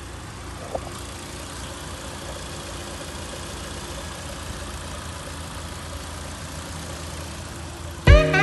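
Hyundai ix35's freshly rebuilt 2.0-litre G4KD four-cylinder petrol engine idling steadily, with one short click about a second in. Music starts just before the end.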